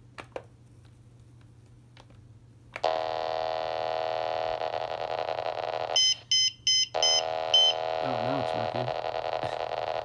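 A few button clicks, then a loud steady buzzing tone starts about three seconds in. Around six seconds in the buzz breaks off for five quick high-pitched beeps from a RadioShack 27.255 MHz pocket pager receiving a page, and then the buzz resumes.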